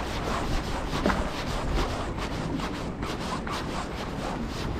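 Wind buffeting the camera's microphone as a steady low rumble, with irregular rubbing and scraping noises from clothing or gear against the camera.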